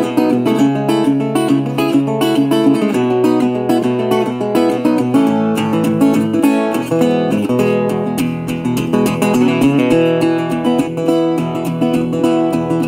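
Background music: acoustic guitar playing quick plucked and strummed notes.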